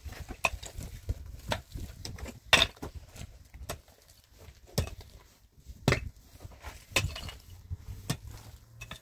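A series of irregular sharp knocks and clatters, about one or two a second, a few of them much louder than the rest.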